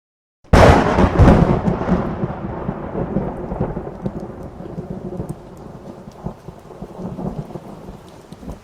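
A thunderclap that cracks in suddenly about half a second in, then rumbles and slowly fades over several seconds, with steady rain hissing throughout.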